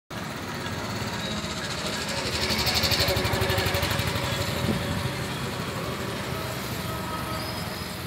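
A motor vehicle engine passing close by, rising to its loudest about three seconds in and then fading into a steady outdoor rumble.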